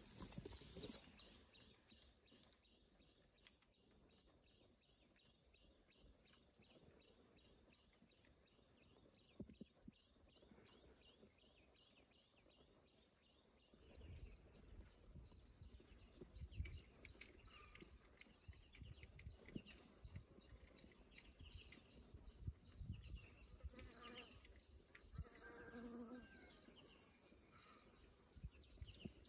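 Faint, steady high-pitched chirring of insects, with a fine regular ticking in the first half that gives way to an even pulsing about halfway through. Faint low knocks and rustles come in at the same point.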